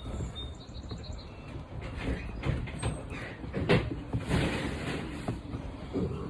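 Scattered light clicks, knocks and rustles of hard plastic mount parts being handled and pressed into place.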